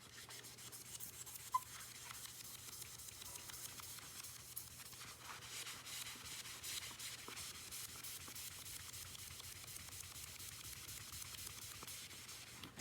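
Faint, quick back-and-forth scrubbing of a stick vacuum's plastic body by hand, wiping off surface grime, with one sharp tap about one and a half seconds in.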